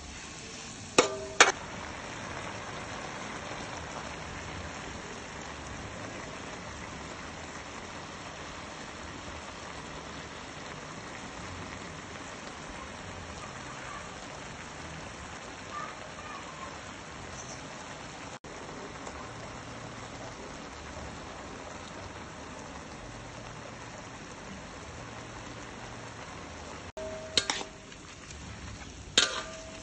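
Beef and ginger sizzling in a metal wok with a steady hiss, while a metal spatula stirs them, scraping the pan and striking its side with short ringing clanks about a second in and twice near the end.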